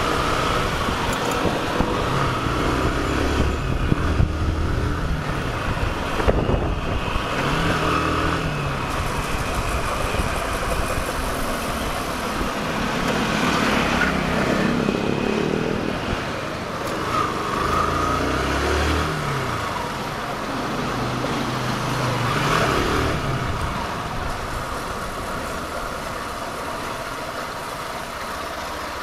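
Motorcycle engine running under way, its pitch rising and falling as the throttle opens and closes, over steady wind and road noise.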